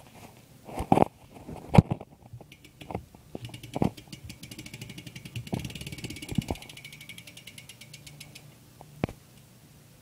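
BMX rear hub clicking rapidly and evenly for about five seconds as the rear wheel spins freely. Scattered knocks from the bike being handled come before, during and after it.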